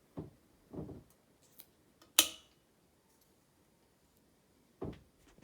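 A single sharp click from the ceiling fan's switch, typical of the fan being turned off, about two seconds in. Around it are a few dull knocks.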